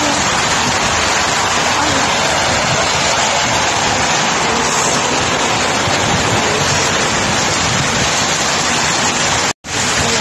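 Heavy rain falling steadily, a dense even hiss, with a brief dropout near the end.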